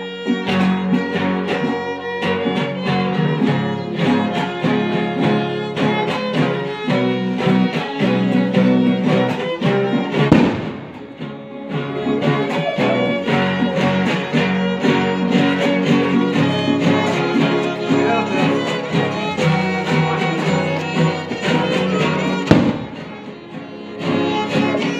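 Lively music played on violin with guitar, with a steady rhythm; it drops off briefly about ten seconds in and again near the end.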